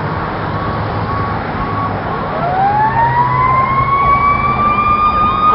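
Fire truck siren winding up: a rising wail that starts about two seconds in and climbs steadily before levelling off, over the truck's engine and road noise, growing louder as the ladder truck approaches.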